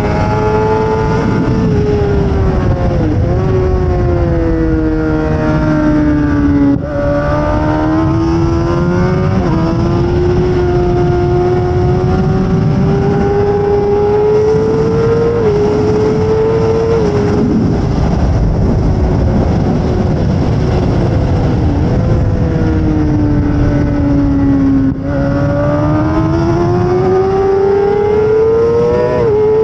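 2008 Suzuki GSX-R600's inline-four engine at high revs under heavy wind rush. Its pitch climbs under acceleration and steps down at gear changes, then falls away when the rider slows for corners, with two brief dips in level at shifts.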